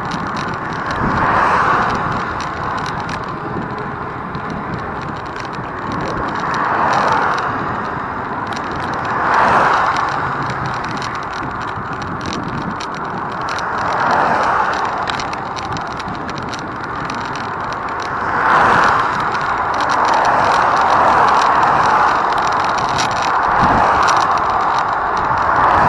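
Road traffic noise: a continuous rush that swells every few seconds as vehicles pass.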